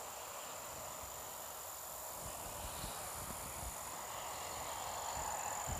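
Field insects trilling on one high, steady, unbroken note, with faint low bumps underneath.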